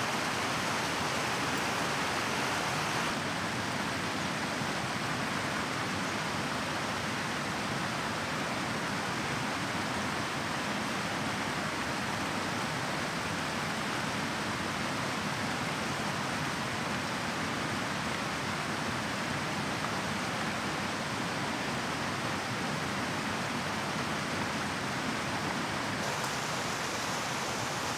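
Steady rushing of a mountain stream flowing close by, an even wash of water noise.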